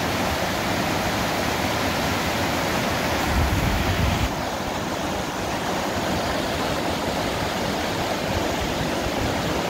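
Poudre River rushing over rocks: a steady, full hiss of fast-flowing water, with a brief low rumble a little past three seconds in.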